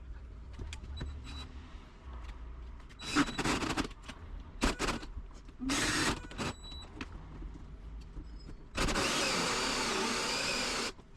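Power drill driving a large hole saw into a door to bore the lockset hole. It runs in three short bursts, then cuts steadily for about two seconds before stopping suddenly near the end.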